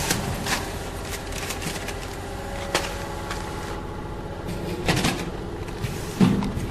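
Frozen chicken leg counting and packing machine running with a steady hum. Sharp clicks and knocks come at irregular intervals, the loudest about five seconds in and again near the end. Filled plastic bags are handled and rustle.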